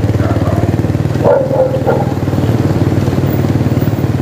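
Motorcycle engine running steadily at low speed, its exhaust beats pulsing rapidly. A brief higher-pitched sound, possibly a voice or a call, rises over it about a second and a half in.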